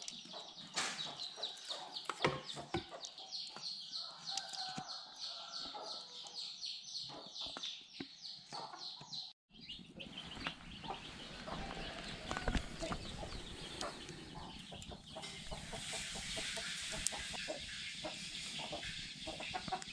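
Chickens clucking in the background. Over them, in the first half, a metal spoon clinks and scrapes in an aluminium bowl of rice and coconut milk. After a short drop-out about halfway, a small wood fire crackles under roasting bamboo tubes.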